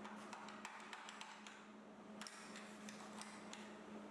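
Hand wire brush scrubbing a fresh weld on a steel bracket, cleaning it off in a quick, irregular series of faint scratchy strokes and taps.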